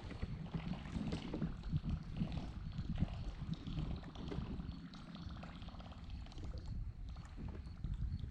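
Wind rumbling on the microphone, with water lapping against the hull of a fishing boat.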